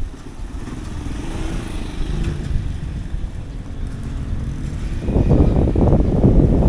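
Street traffic: a motorcycle engine running close by, with a louder, rougher low rumble from about five seconds in.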